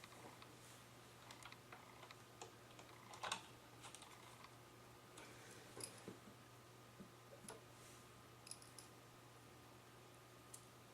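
Faint, scattered small clicks and taps of tiny screws and a screwdriver on a laptop's plastic case as the last screws are set in, the sharpest click about three seconds in.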